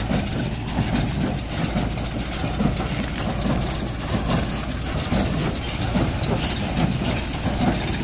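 Tractor-drawn Maschio Pitagora small square baler at work, packing wheat straw into bales, with the baler's machinery and the tractor engine running steadily.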